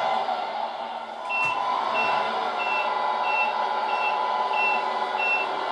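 Scale RC truck's onboard sound unit (Tamiya MFC-03) playing a simulated diesel truck engine, which dips for a moment and then carries on as the reversing beeper starts about a second in: seven short high beeps, evenly spaced at about one and a half per second, the sign that the truck is backing up.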